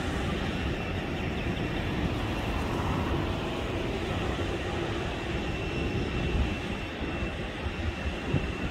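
Steady jet-aircraft noise across the airfield: a continuous rumble and hiss with a faint high whine, with wind buffeting the microphone in uneven gusts in the second half.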